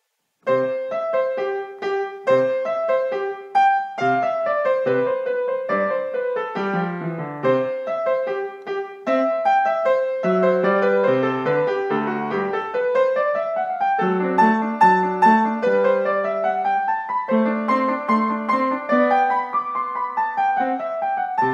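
Upright piano played by a young child with both hands: a steady stream of separate notes, with runs that climb up the keyboard and come back down. The playing starts about half a second in.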